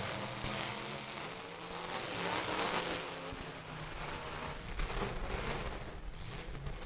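Fullsize demolition derby cars' engines revving in swells, with tyres spinning and throwing mud.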